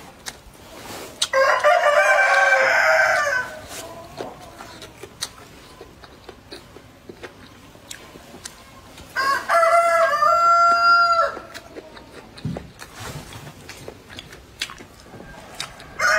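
A rooster crowing twice, each crow about two seconds long, the first about a second in and the second about nine seconds in, with a third crow starting right at the end.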